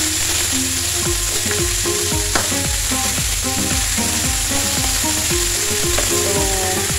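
Raw chicken legs sizzling steadily in hot oil in a stainless steel frying pan. Background music with stepping melodic notes plays underneath.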